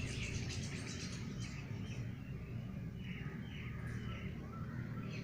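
A flock of rosy starlings (tilyar) calling: a chatter of many short, overlapping chirps, busiest at the start and again about three seconds in.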